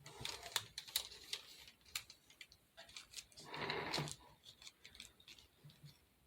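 Faint small clicks and taps of objects being handled, bunched in the first two seconds, with a short rustling hiss a little over three and a half seconds in.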